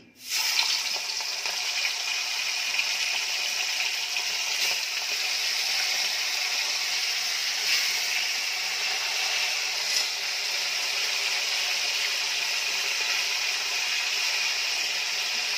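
Pomfret pieces sizzling steadily in very hot oil in a wok. The sizzle starts abruptly as the fish goes in, with a few faint pops.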